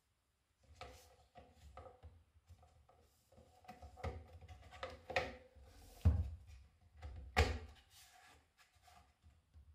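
Hand-fitting the blade of a Scheppach MSB1100 portable metal band saw, with the saw switched off: scattered clicks, scrapes and knocks of the steel blade and the saw's housing. Two sharp thumps about six and seven and a half seconds in are the loudest.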